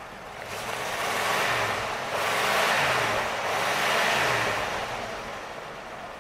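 1976 Buick Electra's 455 V8 revved three times at the exhaust. Each rev rises and falls back over a second or two.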